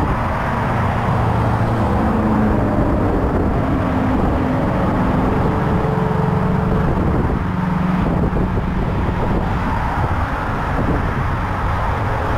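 Steady traffic noise from a busy multi-lane freeway alongside, with the engine and tyre sounds of passing cars rising and fading.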